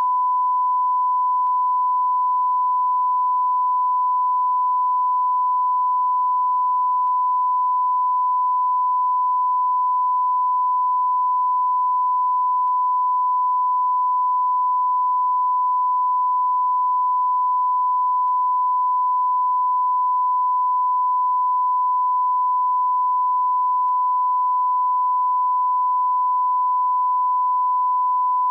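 Bigo Live beep sound effect: a single steady pure-tone beep held without a break.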